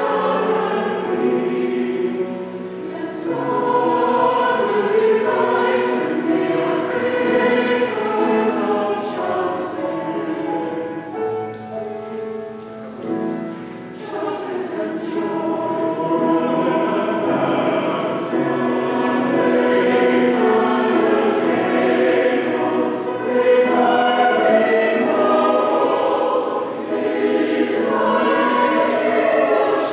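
Mixed church choir of men and women singing together in several parts.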